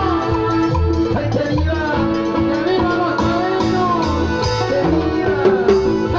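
Live Ecuadorian chicha dance music: a steady bass pulse about twice a second under a gliding lead melody.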